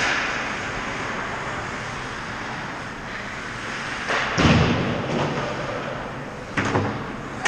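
Ice hockey play on the rink: a steady hiss of skates on the ice, with a heavy thud about four seconds in and a sharper knock about two seconds later.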